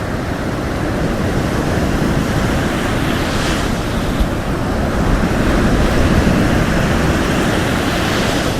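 Sea waves breaking and washing on a shore, a continuous rushing wash that swells, with a brighter hiss of surf about three seconds in and a louder surge around the middle.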